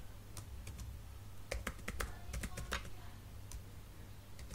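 Typing on a computer keyboard: irregular keystrokes in short runs, busiest from about one and a half to three seconds in, over a low steady hum.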